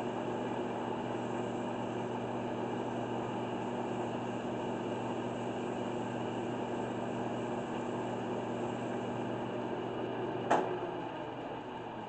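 Wood lathe running at steady speed with a constant motor hum while sandpaper is held against the spinning black walnut, adding a rough hiss. About ten and a half seconds in comes a sharp click, after which the sanding stops and the lathe runs on a little quieter.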